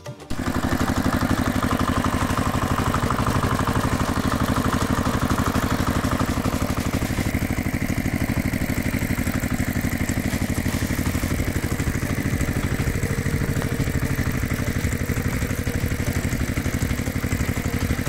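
Engine sound effect: a motor running steadily with a fast, even chugging pulse. It starts abruptly just after the start.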